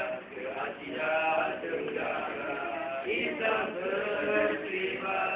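Several boys singing a Malay song together in unison, voices drawn out over held notes.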